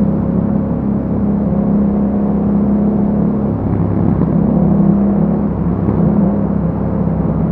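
Yamaha MT-07's 689 cc parallel-twin engine running under way through an aftermarket Akrapovic exhaust. The exhaust note holds steady, then changes pitch with throttle changes about halfway and again near the end.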